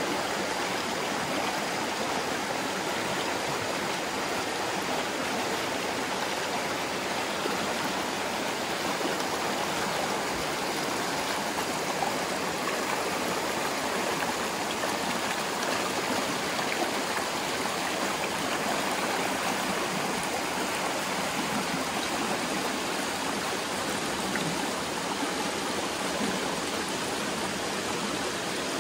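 Shallow rocky mountain stream rushing and splashing over boulders in small rapids, a steady, unbroken sound of running water.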